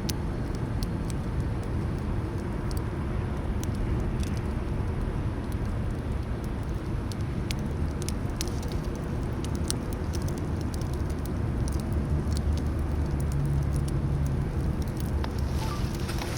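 Wood campfire burning, with scattered sharp crackles and pops over a steady low rumble.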